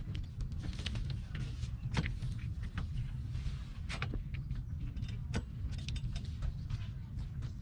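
Rubber glazing gasket being worked by hand onto the edge of a double-pane glass unit: scattered sharp clicks and knocks with rubbing, over a steady low rumble.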